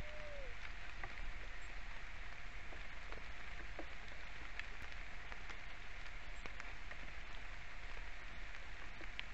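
Steady rain falling, with scattered close drops ticking; one short rising-and-falling note sounds right at the start.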